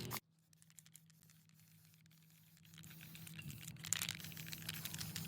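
Aerosol spray-paint can hissing as it sprays, fading in about three seconds in and growing louder, with scattered clicks and a faint steady hum underneath.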